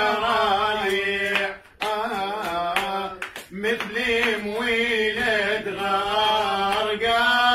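A man's voice singing Iraqi maqam in maqam Saba, drawing out long ornamented vowel notes with wavering pitch. The line breaks off briefly twice, and a few sharp clicks fall in between.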